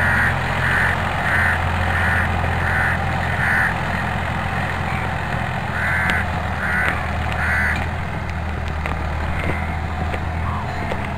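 Mahindra diesel tractor engine running steadily under load as it pulls a rotavator through the soil. Over it a bird calls repeatedly, a run of about six quick calls at the start and three more about six seconds in.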